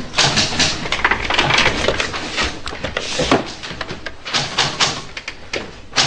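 Fast, irregular typing-like clicks from a computer terminal, several a second, with some louder ones scattered through.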